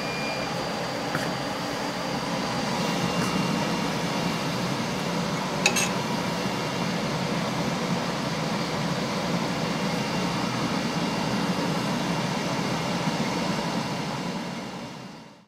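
Steady whirring of the Epilog Fusion CO2 laser engraver's fans, with one sharp click about six seconds in; the sound fades out at the very end.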